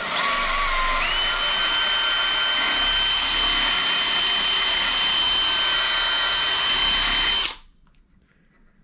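Handheld electric power tool running steadily. Its motor whine steps up to a higher, steady pitch about a second in, then the tool shuts off abruptly near the end.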